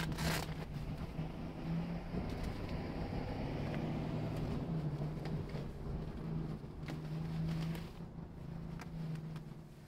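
Steady low hum of a running motor, with a short rustle or knock right at the start.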